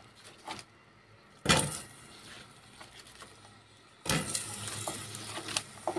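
A sharp metallic clink against the stainless saucepan about a second and a half in. From about four seconds in, a faint steady hiss with small clicks as chopped onion starts to fry in a little oil.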